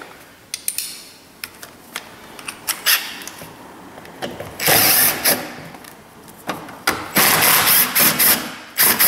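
A few light clicks as a driver bit is taken from a plastic bit case and fitted, then a cordless drill-driver runs in short spurts, once for about half a second midway and in several bursts near the end, backing screws out of a car door trim panel.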